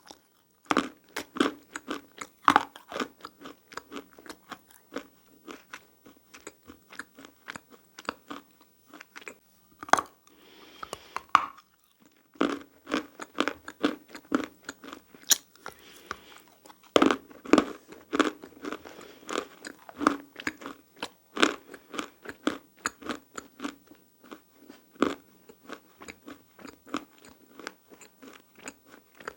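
Close-miked biting and chewing of hard, dry, powdery handmade clay and plaster, with dense crisp crunches, one after another. There is a brief lull about twelve seconds in.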